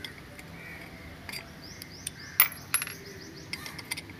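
Metal box spanner clinking against the bolts and aluminium crankcase cover of a Yamaha outboard engine as it is fitted onto a bolt: a scatter of sharp metallic clinks, the loudest about halfway through. A bird's quick run of chirps sounds in the background.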